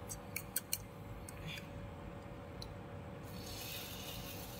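A few sharp clicks of a fork against a bowl, the two loudest within the first second. Then, from about three seconds in, beaten egg poured into a hot nonstick pan starts to sizzle. A steady faint hum from the induction cooktop runs underneath.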